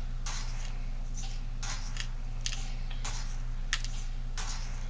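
Bird shot being scooped with a measuring teaspoon and poured into shotgun shell hulls: a run of short rattling pours, five or six in a row, with one sharp click about three-quarters of the way through.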